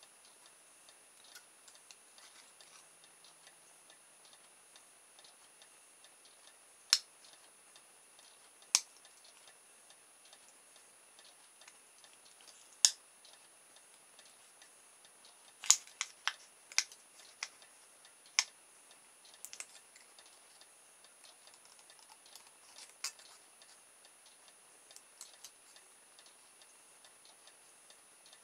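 Scissors snipping through thin aluminium drinks-can sheet: scattered sharp clicks, some single and a few in quick runs, with long quiet gaps between cuts.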